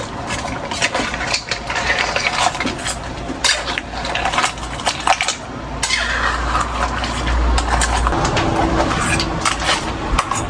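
Kitchenware clattering: repeated clinks and knocks of utensils against dishes and a pot, with a denser scraping, rustling stretch about six seconds in.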